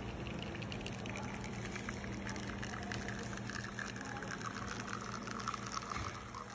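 Commercial espresso machine pulling a shot: a steady low pump hum under the fine trickle of espresso streaming from the portafilter spouts into a ceramic cup.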